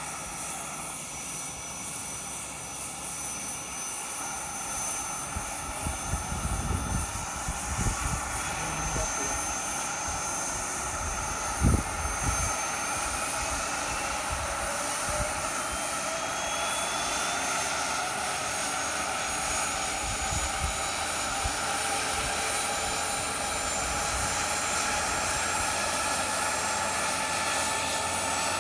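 Small gas turbine of a radio-controlled jet helicopter, a scale Airbus EC-135, running on the ground: a steady high whine that slowly rises in pitch as the turbine spools up. A few low rumbles come in the first half.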